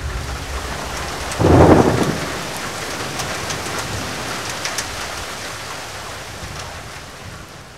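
Steady heavy rain with a sudden loud thunderclap about a second and a half in, its rumble rolling off while the rain slowly fades away toward the end.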